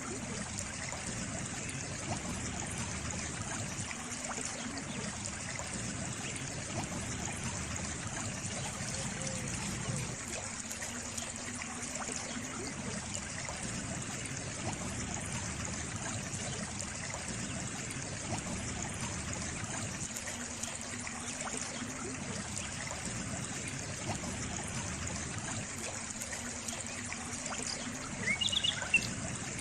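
Small stream or brook trickling steadily over stones, with a few brief high chirps near the end.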